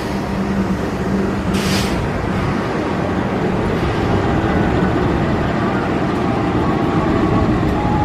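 Diesel locomotives running steadily at the platform, with a short hiss about one and a half seconds in.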